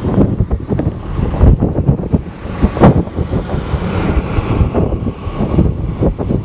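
Wind buffeting the microphone from a moving vehicle, in loud irregular gusts, over the rumble of road traffic.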